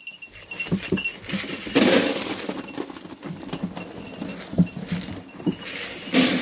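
Sheep crowding in to eat alfalfa pellets: scattered knocks and clatter of hooves and pellets. Two louder rustling bursts come about two seconds in and again near the end.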